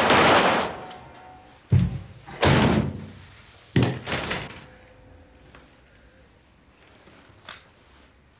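A burst of gunshots: five loud bangs in about four and a half seconds, each with a long echoing tail.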